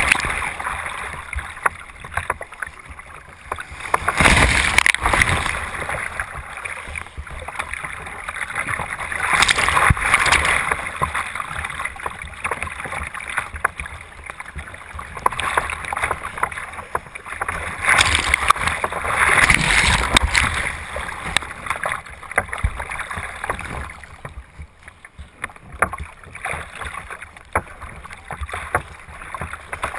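Sea water rushing and splashing over a kayak's foredeck in rough, breaking overfalls, heard from a deck-mounted camera that is repeatedly washed over. The sound surges every few seconds as the bow punches through the waves and eases near the end.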